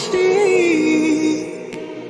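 Background pop song: a held note that bends and slides down, fading a little about a second and a half in.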